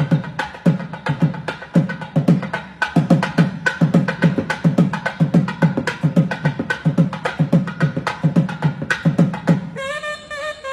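Fast thavil drumming: deep booming strokes mixed with sharp cracking strokes in a rapid, dense rhythm. About a second before the end, a nadaswaram comes in with a held, bending melody over the drums.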